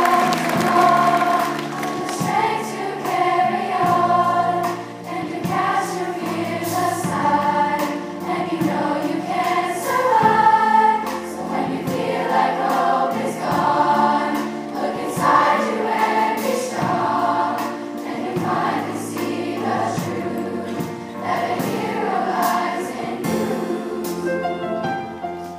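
A large girls' choir singing a slow ballad together over a sustained instrumental accompaniment.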